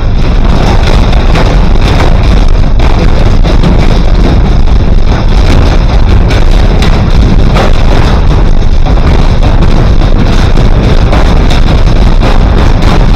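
Washing machine running a fast spin, a loud steady rumble with dense rattling and knocking, so loud that it overloads the recording.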